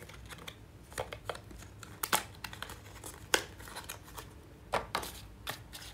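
Phone packaging being handled and opened by hand: irregular crinkles, tears and small sharp clicks, about eight in all.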